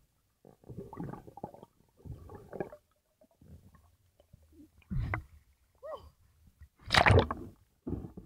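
Underwater gurgling and bubbling heard through a diver's camera during an ascent, in irregular bursts. It ends in a loud rush of water and air about seven seconds in, as the camera breaks the surface.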